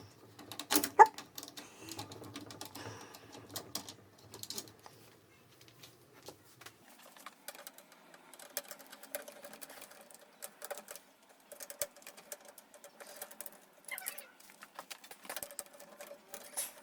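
Scattered light clicks and taps of a screwdriver and small screws being worked against the metal and plastic of a PC case's front fan mounts.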